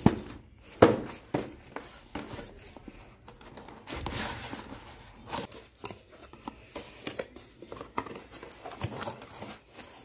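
Cardboard box being opened by hand: flaps rubbing and tapping, with crinkling of packaging. Two sharp knocks in the first second are the loudest sounds, followed by scattered smaller clicks and rustles.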